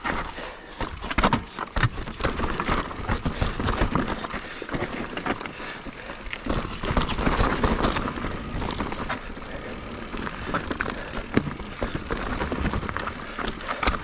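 Full-suspension mountain bike (Giant Reign Advanced Pro 29) rolling fast down rocky dirt singletrack: tyres crunching over dirt and rock, with frequent knocks and rattles from the bike as it drops over rock steps.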